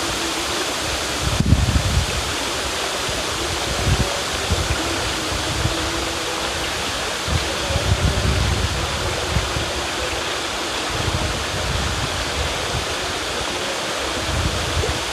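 River water rushing steadily, an even, continuous hiss, with low rumbles that come and go at irregular moments.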